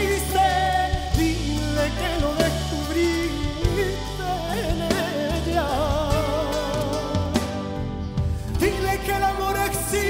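A male lead singer sings a ballad live over band accompaniment with bass and drums, holding a long note with vibrato in the middle of the passage.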